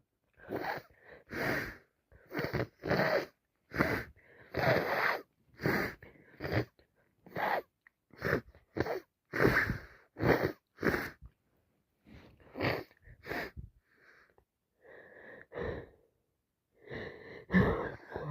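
A woman with a heavy head cold in a long, unbroken fit of quick sneezes and hitching, gasping breaths, about one every half second to second. They thin out briefly before a few louder ones near the end.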